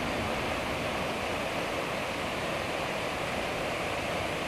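Steady rush of water pouring over a low river weir, an even hiss-like noise that does not change.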